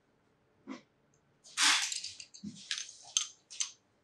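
A wrench working a small metal push-in fitting into an air manifold by hand: a handful of short scraping and clicking sounds, the loudest about one and a half seconds in.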